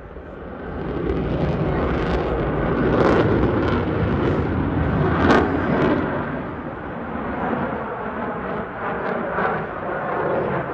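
Eurofighter Typhoon fighter jet's twin turbofan engines passing, a loud rumble that swells about a second in, shot through with sharp crackles.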